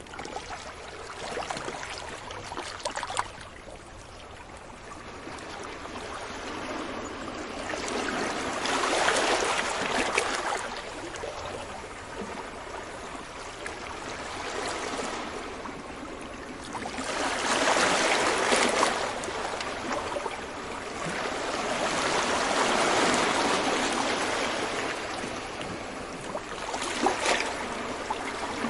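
Ocean waves washing onto a beach, the surf swelling and falling back in slow surges several seconds apart, with a few brief sharper splashes.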